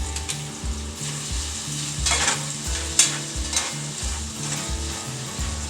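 Chopped celery, onions and potatoes frying in hot oil in a pot, sizzling steadily while a utensil stirs them, with a few sharp scrapes or clinks against the pot, the loudest about three seconds in.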